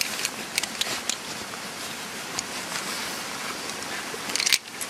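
Steady hiss of falling rain, with scattered sharp clicks: a few in the first second and a cluster near the end.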